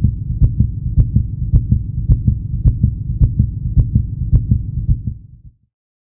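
Low, heavy thudding pulse with a sharp click on each beat, about two beats a second. It fades and stops about five and a half seconds in.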